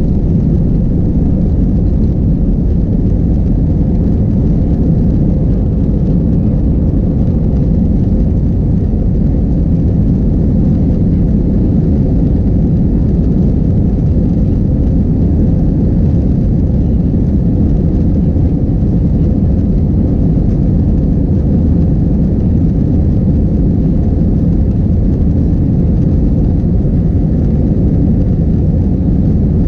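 Airbus A321-231's IAE V2500 turbofan engines at high climb power, heard from inside the cabin behind the wing as a loud, steady, deep rumble with a faint steady tone above it, during liftoff and initial climb.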